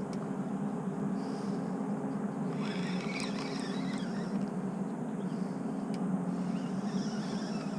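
Steady low engine drone of a ship or towboat running on the river, with faint scraping sounds now and then.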